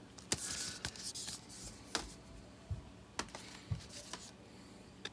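Cardboard CD sleeves being handled and shuffled: a handful of soft, irregular taps and scrapes of card against card and fingers.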